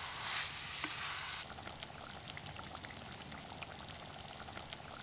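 Mutton frying in a clay pot, sizzling as it is stirred with a slotted ladle. About a second and a half in, the sizzle cuts off sharply, leaving a fainter hiss with scattered small crackles.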